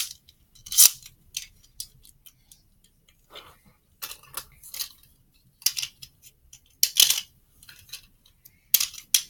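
Scattered small clicks and rattles of hard plastic being handled: Beyblade Burst tops and a launcher being picked up and set up for the next battle, with a few louder clicks about a second in, around seven seconds and near the end.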